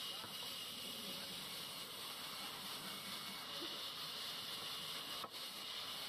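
Band saw resawing river red gum into slats: a steady hiss of the blade running through the timber, with a short dip about five seconds in.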